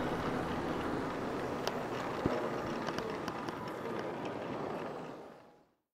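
Large-scale garden model train running on brass track: a steady rolling rush with a few light clicks of wheels over rail joints, fading out near the end.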